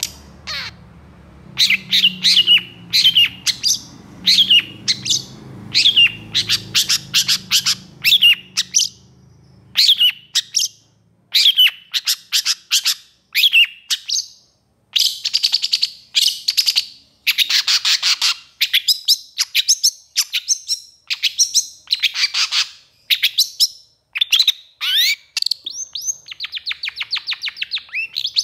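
Long-tailed shrike singing loudly: rapid bursts of sharp, high, downward-slurred notes with short pauses between them, turning into a fast rattling trill near the end.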